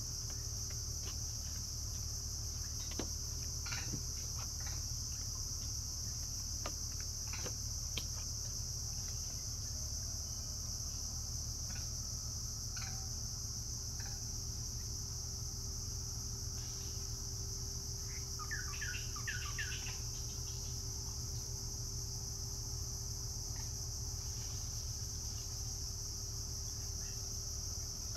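Steady, high-pitched chorus of insects. Scattered faint clicks and a quick run of bird chirps about two-thirds of the way through, over a low rumble.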